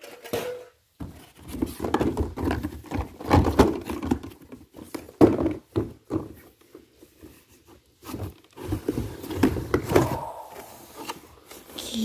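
A cardboard toy box and its plastic packaging being handled and opened. Irregular rustling, scraping and knocks, with short pauses about a second in and again around six to eight seconds in.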